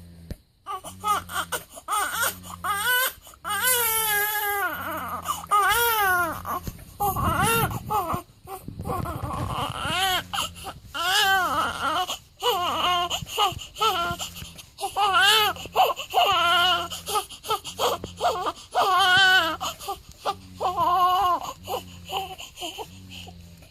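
Newborn baby crying: a run of repeated wavering wails with short breaks between them. A low hum pulses underneath about once a second.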